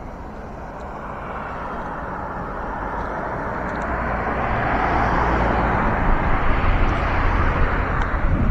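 Motor vehicle noise: a steady rushing sound with a low rumble that grows louder through the second half.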